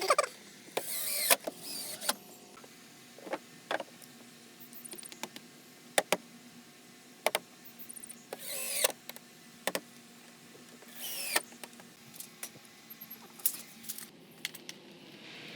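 Scattered knocks and clicks with three short creaking squeaks, the sound of composite deck boards being handled and fitted into place.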